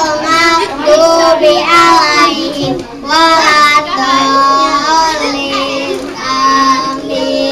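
Young girls singing a song into a handheld microphone, with sustained notes.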